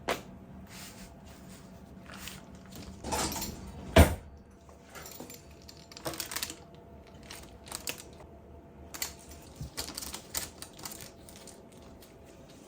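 Objects being handled: irregular light clicks, taps and rustles, with one sharp knock about four seconds in and a quick run of taps later on.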